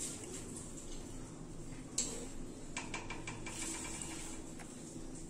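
Metal spoon clinking lightly against a stainless-steel bowl as rasgullas are spooned in: a sharp tap about two seconds in, then a quick run of small ringing clinks around three seconds in.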